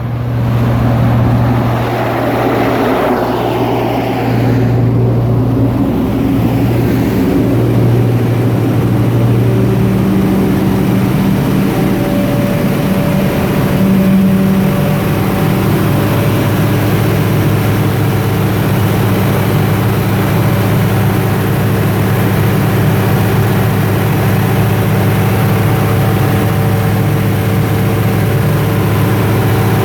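Cummins Onan V-16 turbo diesel generator set running under load during a load test: a loud, steady engine drone with a deep low hum. The sound shifts for the first several seconds, then holds unchanged.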